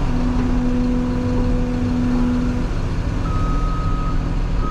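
Heavy-equipment diesel engine running steadily, with a low steady tone held for about two and a half seconds, then a machine's backup alarm beeping twice near the end.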